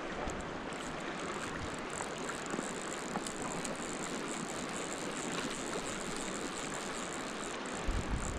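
Steady rush of a high, off-color creek flowing over a riffle, with a couple of low bumps near the end.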